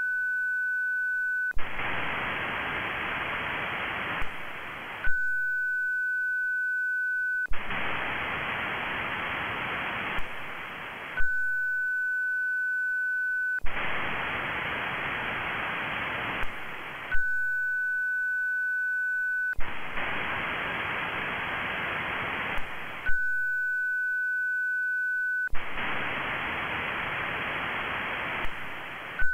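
Amateur-radio moonbounce (EME) echo test repeating on a six-second cycle: a steady whistle-like transmit tone for about two and a half seconds, then about three and a half seconds of receiver hiss, in which the station listens for its own echo off the Moon. Each switch between transmit and receive gives a sharp click, and the whole cycle runs about five times.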